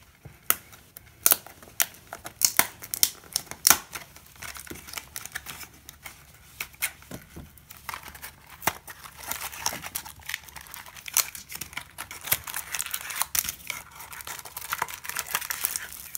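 Cardboard Yu-Gi-Oh special edition box being torn open, with sharp snaps and tearing of the card through the first few seconds. In the second half come denser crinkling sounds as the foil booster packs are handled and slid out of the box.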